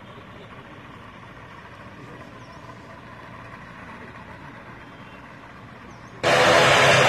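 Faint steady engine hum of a distant light aircraft on the runway. About six seconds in the sound jumps suddenly to a much louder, steady aircraft engine noise.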